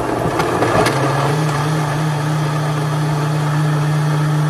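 Countertop blender running, churning soaked bread pieces with eggs and milk into a flan mixture. Its motor hum steps up slightly in pitch about a second in, then holds steady.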